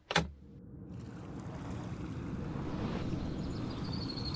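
A brief sharp click, then steady outdoor background noise: a low rumble with hiss above it that slowly grows louder, like wind on the microphone.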